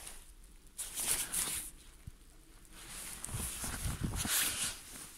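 Footsteps crunching through fresh snow: a couple of steps about a second in, then a longer run of steps in the second half.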